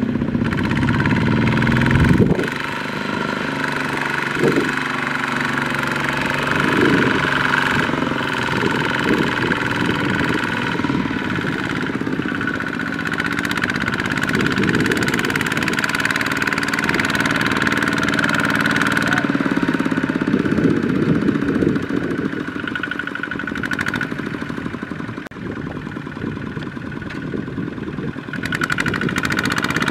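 Kubota ZT155 single-cylinder diesel engines on two-wheel walking tractors running, rising and falling in speed at times as the tractors work through mud. A loud thump about two seconds in.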